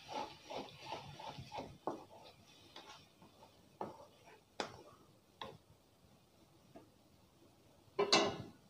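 Wooden spatula stirring wet okra in a thin aluminium kadai: quick scraping taps against the pan for about the first two seconds, then a few spaced knocks. A short, louder sound comes near the end.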